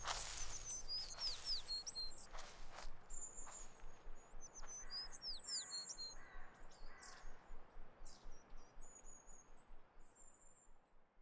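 Small birds chirping and twittering with short high calls and quick falling whistles. There are a few soft knocks in the first few seconds, and everything fades out toward the end.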